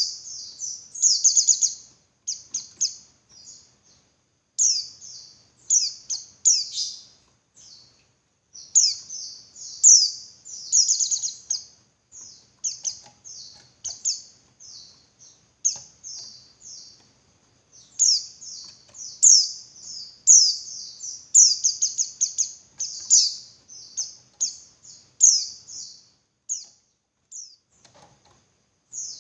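Female white-eye (pleci) calling: quick runs of high, thin chirping notes in bursts with short pauses, with a brief lull near the end. It is the female's call to the male, used as a lure to make male pleci sing more fiercely.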